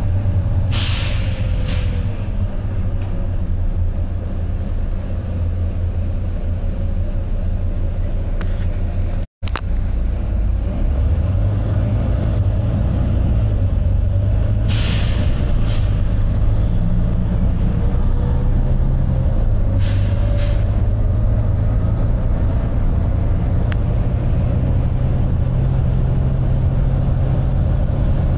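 Volvo B9TL double-decker bus under way, its six-cylinder diesel engine running with a steady low rumble and a whine that falls and later rises again. Short bursts of compressed-air hiss from the bus's air system break in three times.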